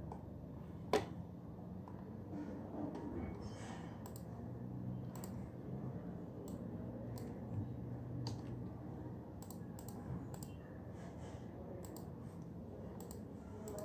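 Typing on a computer keyboard: irregular keystroke clicks, with one sharper, louder click about a second in, over a low steady background hum.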